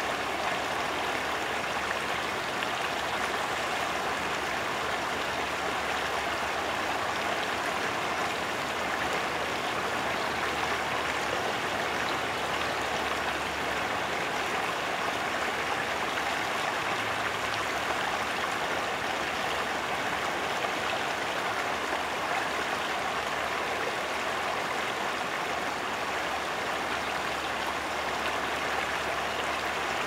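Steady rush of flowing water from a forest stream, even and unbroken.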